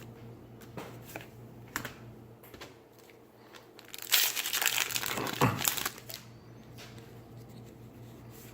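Foil booster-pack wrapper being crinkled and torn open, with a dense crackling burst lasting about two seconds midway and scattered light clicks of handled cards around it.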